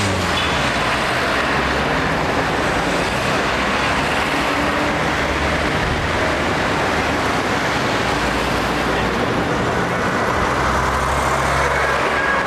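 Busy city street traffic: minibuses, taxis and buses running past, a steady mix of engine rumble and road noise.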